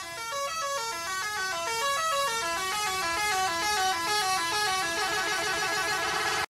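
Several horn-like warning tones layered at once, each alternating up and down in pitch and growing denser, then cutting off suddenly just before the end: the stacked horn and signal sound effects of an animated railroad crossing.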